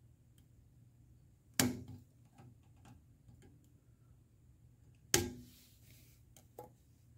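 Wire cutters snipping through the wires of a trailer wiring harness: two sharp snips about three and a half seconds apart, a fainter click near the end, with light handling ticks in between.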